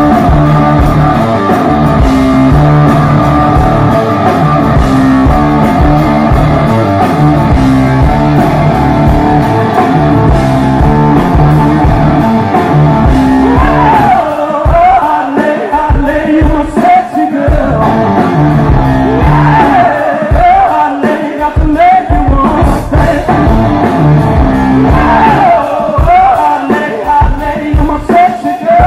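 Rock band playing live, loud: an electric guitar riff over bass and drums. A man's lead vocal comes in about halfway through.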